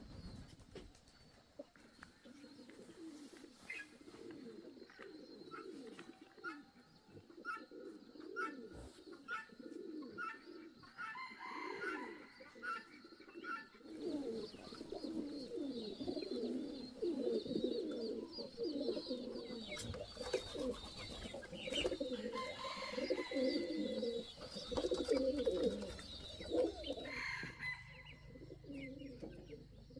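A group of pigeons cooing, many low wavering calls overlapping, growing denser and louder about halfway through, with short higher chirps in the first half.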